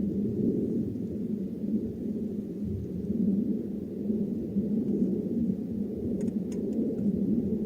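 Low, steady rumble of blizzard wind that swells and eases without a break. A few faint ticks come near the end.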